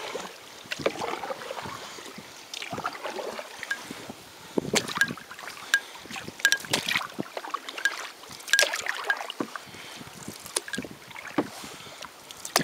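Canoe paddle strokes about every two seconds, the blade splashing in and out of the water and dripping between strokes.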